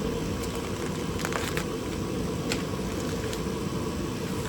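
Steady hum of a space heater's blower warming the garage, with a few light clicks of small bolts and parts from a hardware kit being handled.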